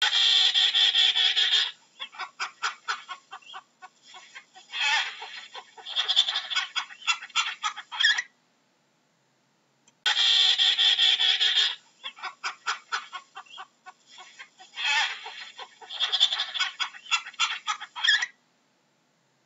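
Penguin braying call: a long honking note, then a run of rapid pulsed notes, another honk and more pulses, lasting about eight seconds. After a silent gap of about two seconds the identical call sequence plays again.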